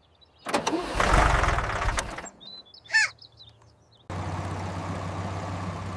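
Tractor engine starting: a loud rush of noise with a low rumble from about half a second in, lasting over a second. From about four seconds the engine settles into a steady low idle. A brief high call sounds near the three-second mark.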